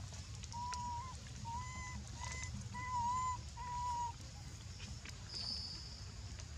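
An animal calls five times in a row with short, clear, whistle-like notes, each about half a second and a little under a second apart. A thin high tone follows near the end.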